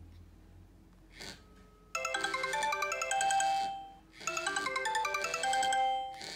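Mobile phone ringtone playing from the phone's speaker: a bright, chiming melody that starts about two seconds in, stops briefly, and plays the same phrase again.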